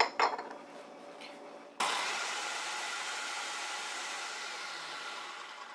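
A few light clicks, then a food processor motor switches on about two seconds in and runs steadily, chopping parsley with lemon-soaked sesame seeds and oil in the bowl. Near the end it winds down.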